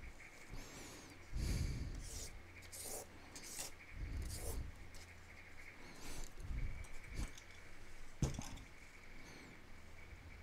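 Paper being handled and rustled in a series of short, irregular scratchy strokes, over a steady low hum.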